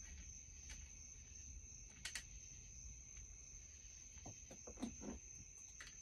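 Quiet hand work on a chainsaw's handlebar and top cover: a few small clicks and knocks of parts and fasteners being fitted, the sharpest about two seconds in. A steady high-pitched tone runs underneath.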